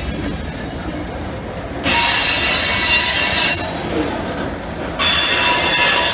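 Freight cars rolling past with a steady rumble, their steel wheels squealing against the rails in two high-pitched stretches: one from about two seconds in lasting a second and a half, and another near the end.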